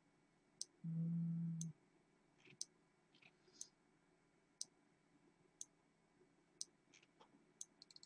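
5 V relay module driven by an Arduino, clicking once a second as it switches on and off, with a few fainter clicks in between and a brief low hum about a second in.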